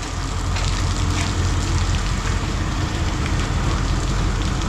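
Steady low engine rumble, as of a vehicle or machine running at idle, with a few faint clicks.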